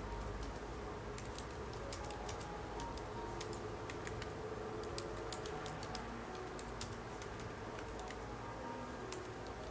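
Typing on a laptop keyboard: bunches of quick, light key clicks broken by short pauses.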